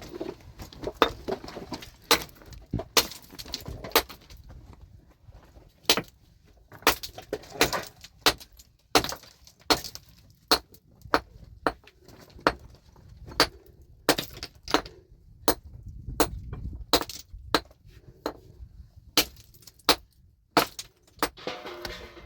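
Stones clacking and knocking against one another in a long series of sharp, irregular hits as rocks are picked up and tossed aside.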